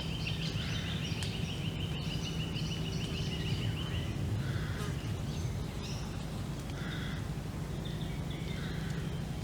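Mixed songbirds calling and singing in woodland: a fast, even trill of rapidly repeated notes stops about four seconds in, while other short chirps and calls come and go throughout, over a steady low rumble.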